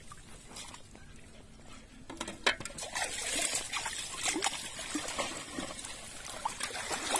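Shallow water being splashed and sloshed by hand, with water thrown against a metal basin; the splashing picks up about three seconds in. A single sharp knock sounds just before it.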